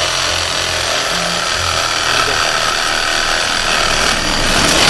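Cordless reciprocating saw running steadily as its blade cuts through a whitetail buck's antler.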